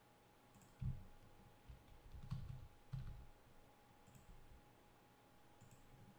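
Faint clicks of a computer mouse and keyboard, with a few soft low thumps about one, two and three seconds in, over a faint steady hum.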